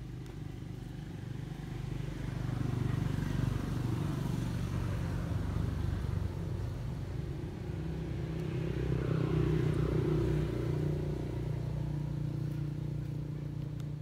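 Motor vehicle engine running steadily, louder twice as it passes: around three to five seconds in and again around nine to eleven seconds in.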